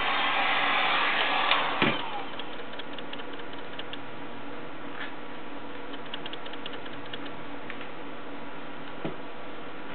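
Heat gun blowing hot air on the vinyl, switched off with a click about two seconds in. A steadier, quieter hum follows, with a few scattered light ticks.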